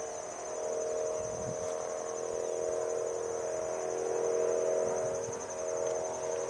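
Insects trilling steadily at a high pitch over a louder, steady low drone that swells about a second in and eases briefly near the end.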